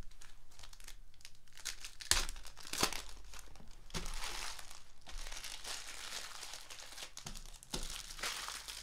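Foil trading-card pack wrappers crinkling and tearing as basketball card packs are opened by hand, with a couple of sharper crackles about two and three seconds in.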